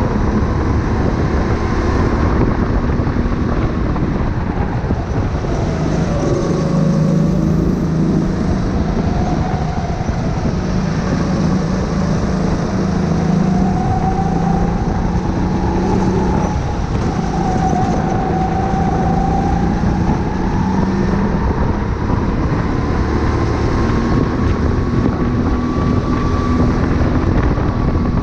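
Sodi go-kart's engine running at racing speed, heard from on board, its pitch rising and falling as the kart brakes into and accelerates out of corners, over a steady low rumble.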